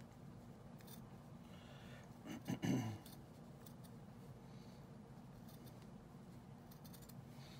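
Scissors cutting fabric: a few faint scattered snips, with a brief louder handling sound about two and a half seconds in.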